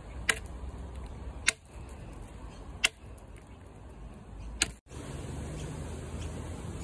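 Four sharp clicks about a second and a half apart over a low rumbling background.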